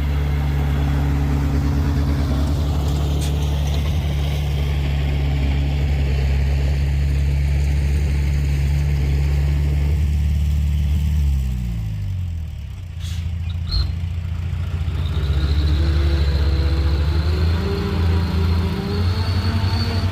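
A vehicle engine running steadily with a low drone, dropping in pitch about eleven seconds in as it slows, then rising again near the end as it picks up speed.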